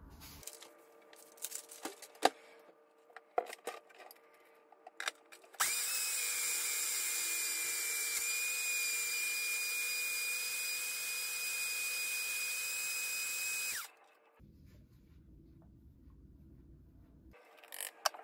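Personal blender motor running steadily for about eight seconds with a high whine, blending a smoothie, then cutting off. Before it, a few clicks and knocks as the cup is handled on the base.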